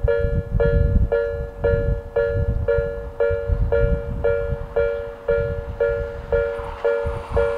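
Japanese level crossing alarm of the Odakyu "Hakone type" (Odakyu Nikko tone): an electronic two-note ding repeating about twice a second, signalling an approaching train. Near the end the noise of the arriving train starts to rise under the dings.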